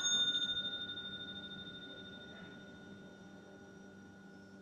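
Hitachi elevator's arrival chime: a single bell-like ding that rings out and slowly fades over about three seconds.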